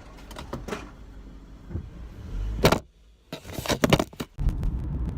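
Sounds inside a car: a low rumble with a few knocks and clicks, a brief break, then a cluster of clicks and knocks. After that the car's steady low engine and road rumble carries on from about four and a half seconds in.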